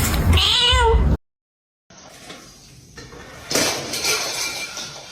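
A cat meows once, a wavering call cut off abruptly about a second in. After a short silence, clattering and rustling noises follow, loudest around the middle.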